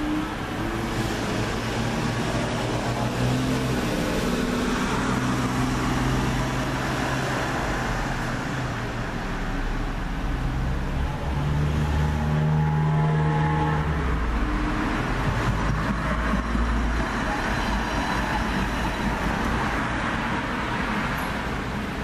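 Road traffic: a steady run of vehicle engine noise, with a low engine hum that shifts in pitch and swells a little past the middle, as if a heavier vehicle passes or idles close by.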